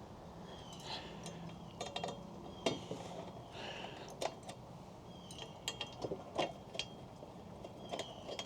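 Scattered light metallic clicks and clinks of tools and screws as the screws holding a TV's mounting bars are taken out.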